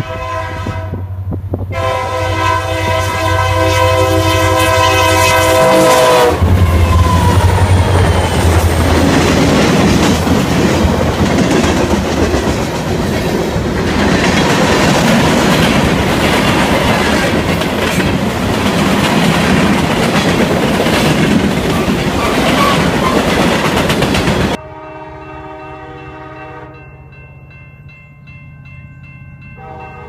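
Air horn of a Union Pacific freight led by an EMD GP40-2 locomotive: a short blast, then a long one of about five seconds. The locomotives then pass close by with a heavy low engine rumble, followed by the steady rumble and clickety-clack of freight cars rolling past. About 25 seconds in it cuts abruptly to a fainter train horn sounding in the distance.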